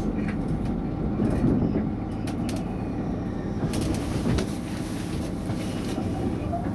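Inside a DB class 641 'Walfisch' diesel railcar running along: a steady rumble of the engine and wheels on the rails, with a few sharp clicks from the wheels over the track as it passes through the station tracks.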